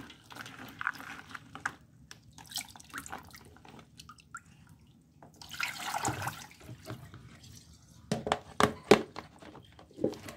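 Peeled shallots swished and rubbed by hand in water in a plastic colander. About six seconds in, the rinse water is poured out of the basin and splashes onto a tiled floor. Near the end come a few sharp knocks as the plastic colander and basin are handled.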